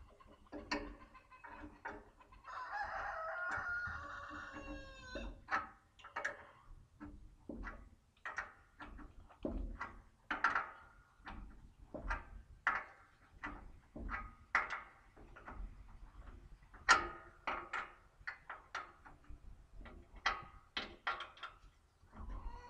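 A rooster crows once, starting about two and a half seconds in and lasting nearly three seconds. Around it come irregular sharp clinks and knocks of hand work on the bandsaw mill's metal fittings, the loudest about seventeen seconds in.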